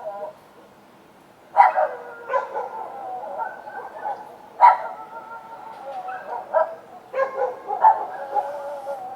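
Dogs barking outdoors. A drawn-out howl fades out at the start, then after a short lull come several loud, sharp barks over long wavering howls.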